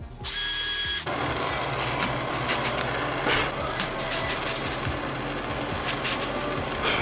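Power drill boring holes through the rubber of a snowmobile track lug to take tie-wrap stitches. The motor gives a high whine for about a second, then settles into a steadier, rougher drilling sound with the bit scraping in the rubber.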